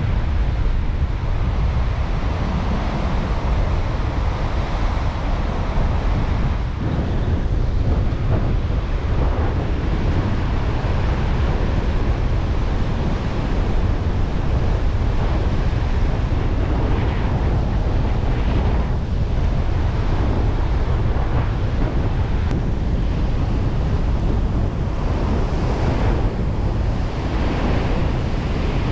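Strong wind buffeting the microphone over the steady rush of rough surf breaking on the shore.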